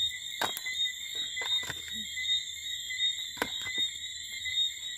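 Steady high-pitched night-time chorus of calling insects or frogs, with a scatter of light clicks and knocks as grilled fowl pieces are taken off a wire grill and dropped into a plastic bowl.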